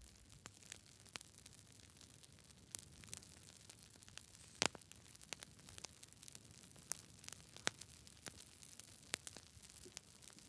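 Campfire wood crackling: irregular sharp pops and snaps over a soft steady hiss, the loudest pop about halfway through.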